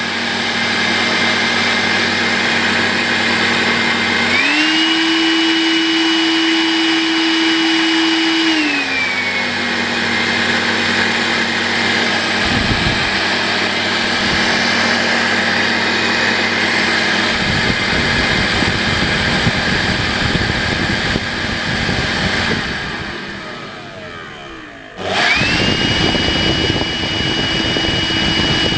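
Makita CL182FD 18V cordless stick vacuum cleaner running, its motor hum stepping up to the higher speed about four seconds in and dropping back down a few seconds later. A rough low rattle joins the hum past the middle, then the motor is switched off and winds down, and it is started again near the end and runs up to the higher speed. The cleaner has an abnormal noise that the owner traced to its motor.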